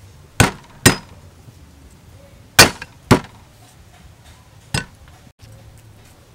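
The flat of a cleaver smacked down onto garlic cloves on a wooden chopping block, crushing them. Five sharp whacks: two quick pairs, then a single one near the end.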